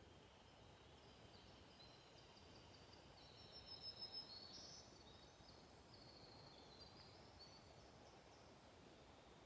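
Faint high, thin bird song over a near-silent woodland hush, with a slightly louder run of notes a little before the middle.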